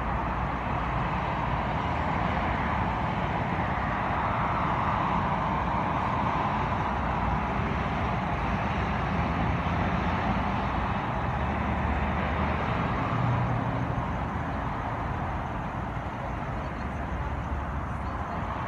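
Steady road traffic noise, vehicles going by with a low rumble.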